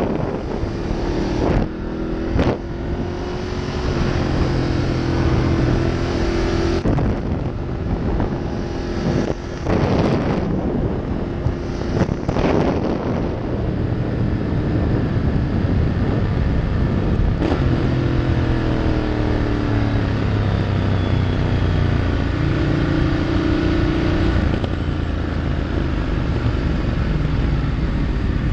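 Ducati Multistrada's V-twin engine running at low speed, with wind rush on the helmet-mounted microphone that eases about halfway through. The engine note drops and settles lower about two-thirds of the way in as the bike slows.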